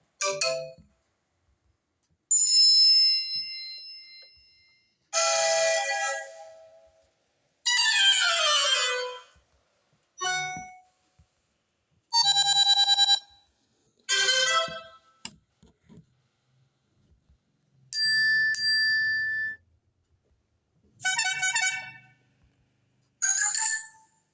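iPhone XR built-in alert tones played one after another: about ten short electronic chimes and jingles, each a second or two long, with brief silences between them. One of them is a quick cascade of falling notes.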